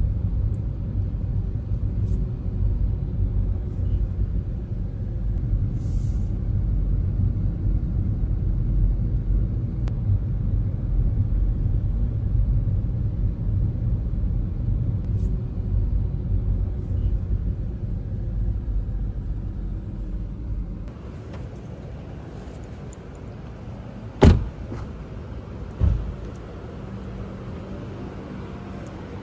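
Low steady rumble of a car, dropping to a quieter outdoor background about three-quarters of the way through. Near the end come two sharp knocks about a second and a half apart.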